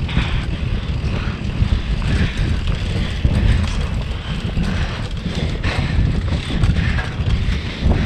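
Mountain bike descending a dirt singletrack at speed: wind buffets the microphone in a loud, gusty rumble over the hiss of tyres on dirt, with a few short knocks as the bike hits bumps.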